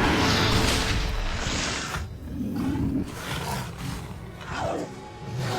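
Cartoon monster roaring and snarling in a fight: a long, loud roar over the first two seconds, then shorter growls.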